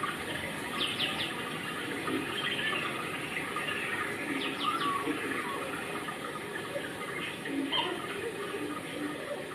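Outdoor ambience of steady running water, with a bird giving short runs of quick chirps about a second in and again around four and a half seconds.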